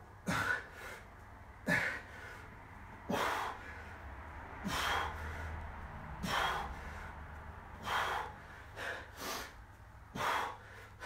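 A man breathing hard from exertion: short, forceful breaths, about one every second and a half.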